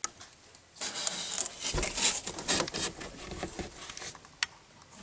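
A cat scrambling about in a cardboard box: about three seconds of rustling and scratching on cardboard, with one sharp tap near the end.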